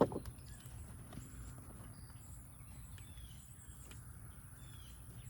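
Gloved hands digging through loose soil in a raised garden bed: a sharp thump at the start, then soft scraping and rustling with a few small clicks.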